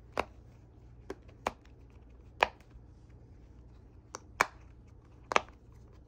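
Silicone bubbles of a flower-shaped Dimpl Digits fidget popping as a finger presses them through one by one, about seven sharp pops at an uneven pace.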